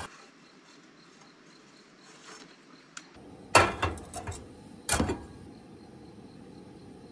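Sharp clatters of cookware and a spatula at a camp stove: a quick run of knocks about three and a half seconds in, then another about five seconds in.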